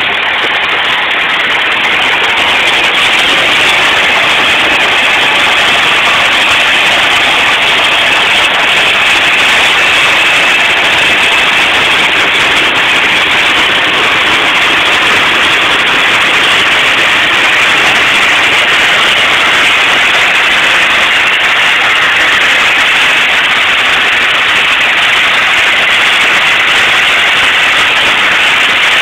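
Diesel tractor engines and a trailed harvester working steadily under heavy load, heard up close as a loud, unbroken mechanical noise.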